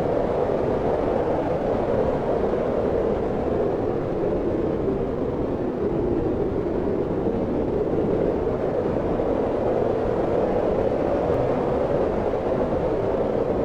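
Steady wind blowing: an even, low rushing noise with a deep rumble, swelling and easing only slightly.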